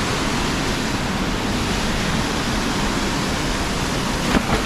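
Waterfall: falling water rushing as a steady, even noise.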